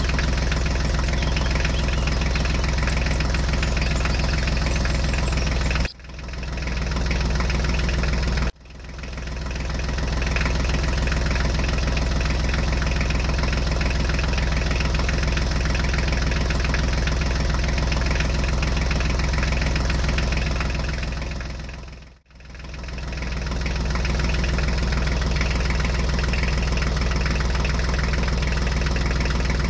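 Tractor engine idling steadily. It cuts out abruptly about six seconds in, again at about eight and a half seconds and near twenty-two seconds, and swells back in each time.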